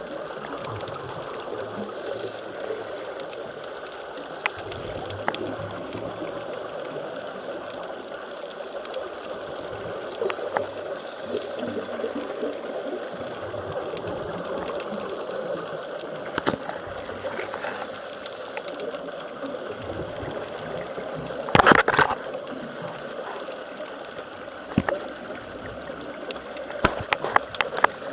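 Underwater sound heard through a camera's waterproof housing: a steady hiss with faint bubbling. About 21 seconds in there is a loud short burst of knocks, and near the end a run of sharp clicks, as the housing is handled.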